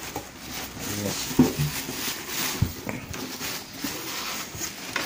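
Plastic wrap crinkling and polystyrene packing rubbing against the cardboard box as hands handle the packed item, with one dull knock about halfway through.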